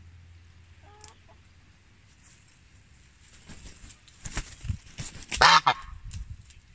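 A chicken gives a brief call about a second in, then another chicken flaps its wings hard as it takes off. The flapping comes as a run of quick whooshing beats, loudest about five and a half seconds in.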